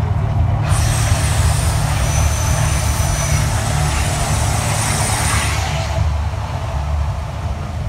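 Mirage volcano show: a loud, deep, steady rumble, with a hissing rush over it from about a second in until about five and a half seconds, as flames burst from the top of the artificial volcano.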